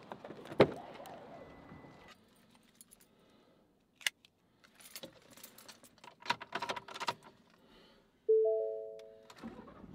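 Keys jangling and clicking as the key goes into a Ford F-150's ignition, with a sharp click about half a second in. Near the end the dashboard gives an electronic chime: three notes close together that fade out over about a second.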